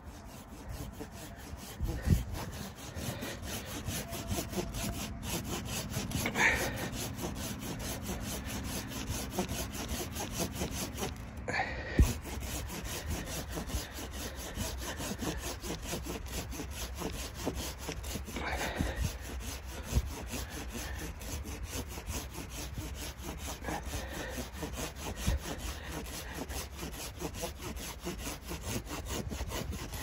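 A folding hand saw cutting through a dead, snow-covered log in quick, steady back-and-forth strokes. A few sharper knocks stand out now and then.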